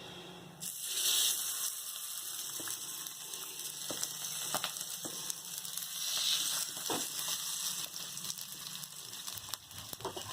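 Marinated fish sizzling in ghee on a hot cast-iron dosa tawa, a steady hiss that starts suddenly just under a second in and swells again around six seconds, with a few light taps.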